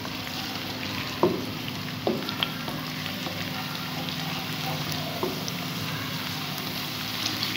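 Chopped onion sizzling steadily as it fries in hot ghee while it is being browned, with a few short knocks and scrapes of a plastic spatula stirring it against the metal pot.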